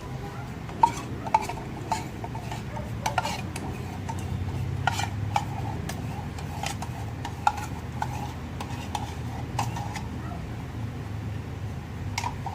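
A utensil stirring egg yolks and condensed milk together in a pan, clinking against the pan at irregular moments, over a low steady hum.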